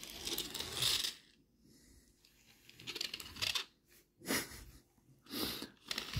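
Small plastic toy motorcycles pushed across a textured tablecloth, their little plastic wheels rolling and rattling over the embossed surface in several short bursts, with a light clatter as they are set down.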